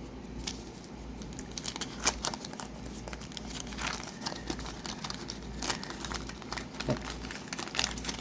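Wax-paper wrapper of a 1990-91 O-Pee-Chee hockey card pack being torn open and crinkled by hand, an irregular run of sharp crackles.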